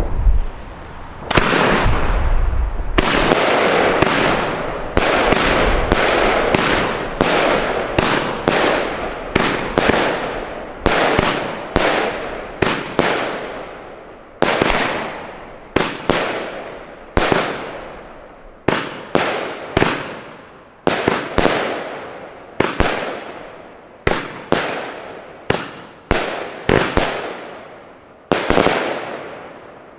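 Röder Billich&Willich No. 7 strobe firework cake firing shot after shot, about one a second. Each shot is a sudden bang followed by a fading crackle and fizz of strobing stars.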